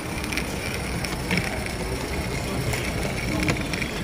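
Accucraft live-steam 13-ton Shay model locomotive, butane-fired, running on its track: a steady hiss with scattered light clicks from the running gear, over background chatter.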